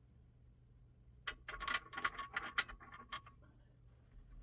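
A small cue-tip clamp being handled as a freshly glued cue shaft is set into it: a quick run of clicks and scrapes lasting about two seconds, then one more click near the end.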